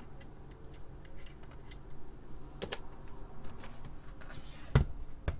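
Small clicks and taps of a clear acrylic and circuit-board panel assembly, bolted together with spacers, being handled and tilted, with a louder knock near the end as it bumps something.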